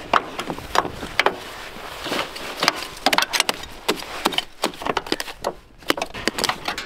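Irregular knocks and scrapes as packed snow and ice are chipped out of a motorized tow sled's clogged track, several sharp hits a second.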